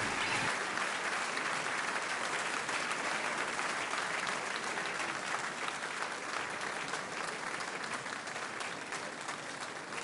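A large concert audience applauding: a dense, even patter of many hands clapping that slowly fades.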